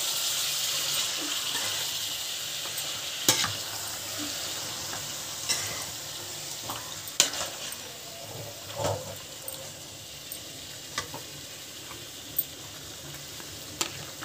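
Chicken pieces and green masala paste sizzling in a kadai, gradually quietening, while a metal spatula stirs them with scattered clicks and scrapes against the pan. The masala is being sautéed until its raw smell cooks off.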